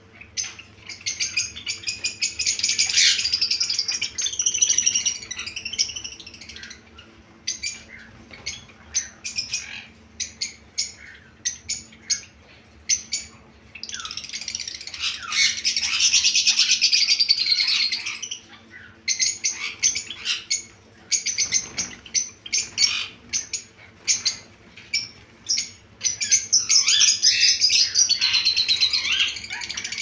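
Caged Java sparrows chirping: three stretches of dense, overlapping high chirping a few seconds each, with separate short sharp chirps in between.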